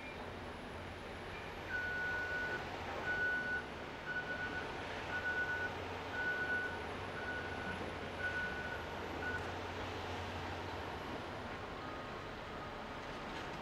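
Diesel engine of a Caterpillar bulldozer running steadily under load, with its backup alarm beeping about once a second for several seconds while it reverses, then falling silent.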